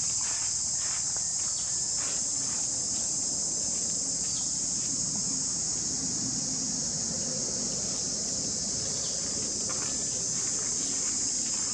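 A steady, high-pitched insect chorus drones throughout. A few faint clicks and rustles come in the first couple of seconds.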